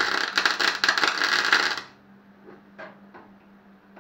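MIG welder arc crackling and sputtering as a plug weld is laid on a classic Mini's boot-floor bracket, stopping about two seconds in. A low steady hum runs underneath, with a few faint ticks in the pause.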